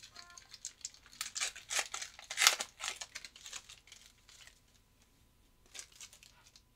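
Foil wrapper of a Panini Mosaic football card pack crinkling and tearing as it is opened, a quick run of crackles loudest about two and a half seconds in. Then it fades to a few faint crinkles near the end.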